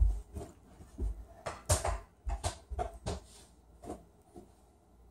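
A heavy thud as someone lands from a jump on the floor, then a string of irregular short knocks and bumps from the ball and from movement against the floor and furniture. The knocks die away a little after four seconds in.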